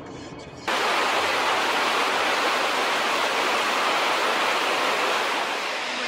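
Krimml Waterfalls: a loud, even rush of falling water that cuts in abruptly about a second in, after a quieter stretch, and eases slightly near the end.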